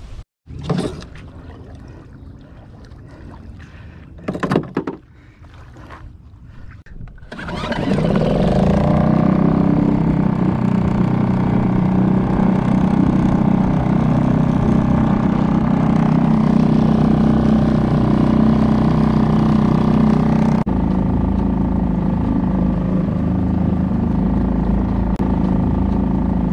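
Suzuki 2.5 hp single-cylinder four-stroke outboard motor running steadily at constant speed, pushing a 12-foot aluminium Jon boat across the water. It comes in loud after a few quieter seconds that hold a couple of brief knocks.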